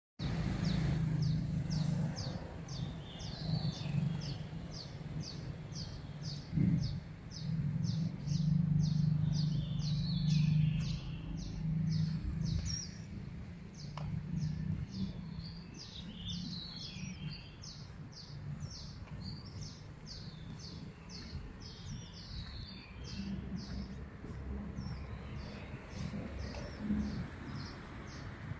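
Birds calling in the early morning: one repeats a short high note about three times a second for much of the time, then stops, with scattered chirps from others. A low rumble runs underneath, loudest in the first half.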